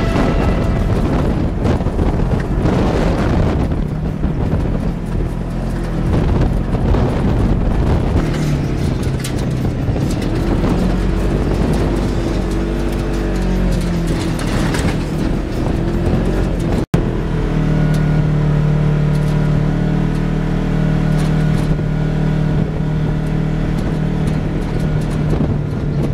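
Polaris RZR side-by-side driving over a rough desert track: the engine runs with its pitch rising and falling under a rough, noisy wash of track and wind noise. After a cut about two-thirds of the way through, the engine gives a steady drone at an even speed.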